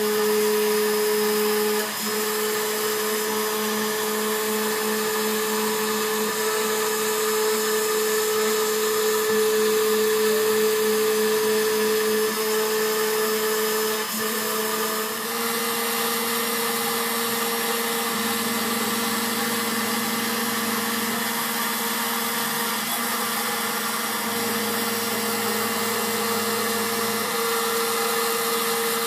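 CNC router spindle running with a steady whine. Its pitch steps slightly higher about halfway through.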